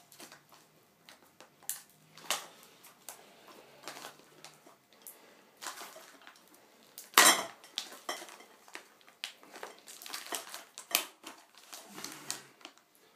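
Irregular clicks, clinks and knocks of hard objects being handled while something is worked open, with one sharp, loud knock about seven seconds in.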